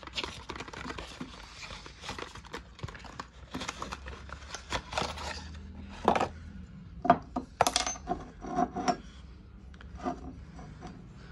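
Frosted glass perfume bottles and their cardboard box handled on a wooden desk: rubbing and scraping with a string of light knocks and clinks, the sharpest, briefly ringing ones from about six to nine seconds in.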